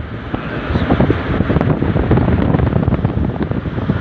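Wind rushing and buffeting over a phone microphone aboard a moving river boat, over a steady low rumble from the boat under way.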